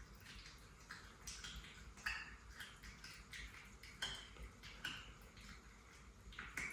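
Cat chewing a caught lizard: faint, irregular clicks and wet crunches.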